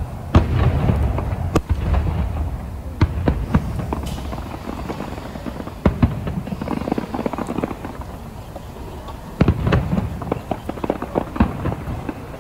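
Aerial fireworks display: scattered sharp bangs and crackles over a low rumble, with a denser run of bangs near the end.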